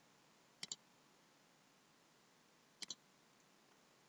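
Two computer mouse-button clicks, each a quick press-and-release double tick, one under a second in and the other about three seconds in. The rest is near silence.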